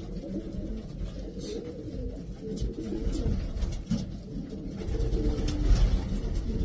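Racing pigeons cooing, low coos overlapping one another, with scattered light clicks.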